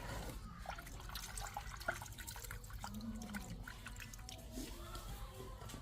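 Soft wet clicks and smacks of a baby monkey eating, with a brief low hum about three seconds in.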